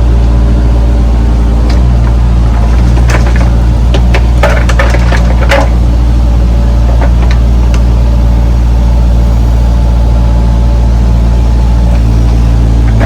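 Diesel engine of a Bobcat compact excavator running steadily, with a cluster of sharp clanks and knocks about three to six seconds in.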